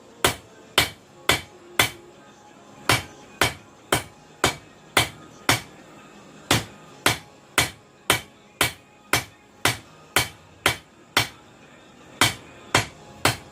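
Hammer blows on a cable Damascus billet at the anvil, forge welding it: sharp ringing strikes about two a second, in runs broken by brief pauses.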